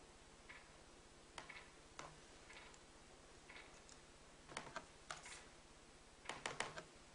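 Near silence: a faint low hum of room tone, with scattered faint clicks and taps and two small clusters of them in the second half.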